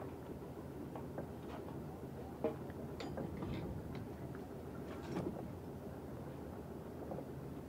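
Steady low rumble of the sailboat's engine idling as the boat sits nearly stopped, with a few light knocks and clicks from the pike pole and mooring gear against the boat, the sharpest about two and a half seconds in.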